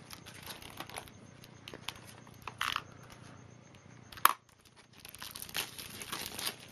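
Plastic packaging crinkling and rustling as it is pulled off and unwrapped, in scattered handling crackles, with a single sharp click about four seconds in.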